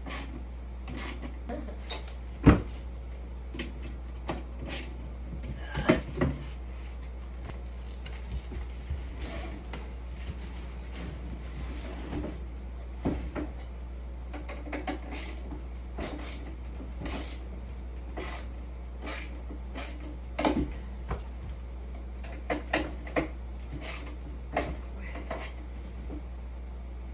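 Scattered knocks and clicks of hand assembly work, a screwdriver and slatted enclosure panels being handled, the sharpest knock about two and a half seconds in. A steady low hum sits underneath.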